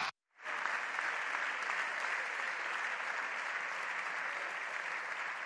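Applause from a chamber full of deputies clapping. It sets in a moment after a very short silence and keeps up at an even level.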